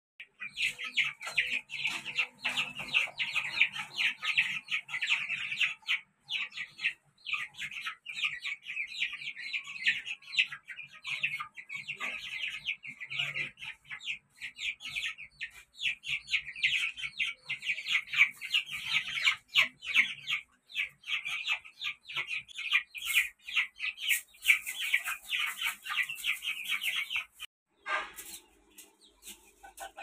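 Bantam chickens calling: a dense, continuous run of short high chirps and peeps mixed with some lower clucks, cutting off abruptly a little before the end.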